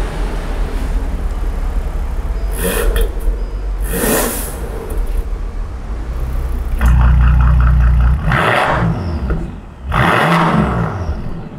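Bentley Flying Spur's W12 engine through an aftermarket Power Craft valved exhaust, idling with a couple of short blips. About seven seconds in it gets much louder and is revved several times, the pitch rising and falling with each rev.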